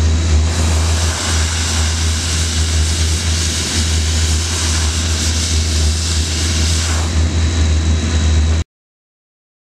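Steam jetting from an ice dam steamer's cone nozzle onto snowy asphalt shingles: a loud, steady hiss over a low rumble. It cuts off abruptly near the end.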